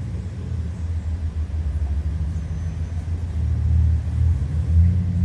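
Car engine idling with a deep, uneven low rumble that swells louder a few times in the second half.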